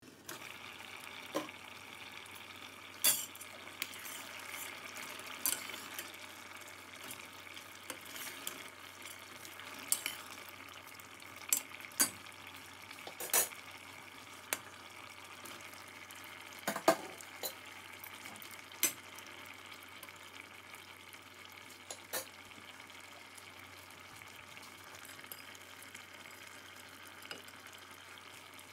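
Prawn and okra curry simmering in a stainless steel pot: a steady sizzling hiss, broken every second or few by sharp clicks and knocks against the pot.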